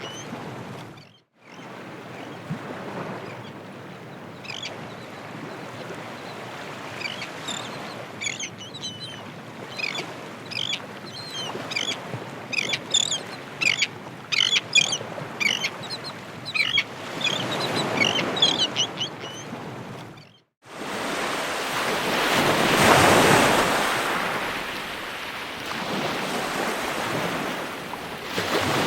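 Ocean surf washing steadily, with many short bird chirps over it through the middle. After a brief drop-out, a louder wave swells and breaks, then the surf carries on.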